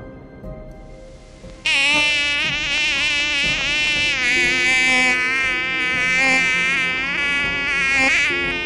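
Mosquito whine: a loud, high buzzing hum of beating wings that wavers slightly in pitch. It starts abruptly a little under two seconds in, after a stretch of faint background music.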